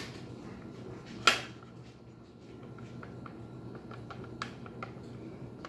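Scattered light clicks and knocks of metal gun parts being worked by hand as the bolt handle of a Rock Island Armory VR-60 shotgun is wiggled to line it up with its notch. The sharpest click comes about a second in, another about four seconds in, over a faint steady hum.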